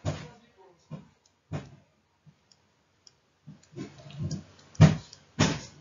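Scattered light clicks and taps of a stylus on a drawing tablet during handwriting, with two sharper, louder taps near the end.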